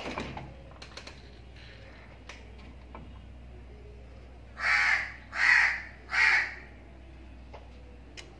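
House crow cawing three times in quick succession, each caw harsh and about half a second long.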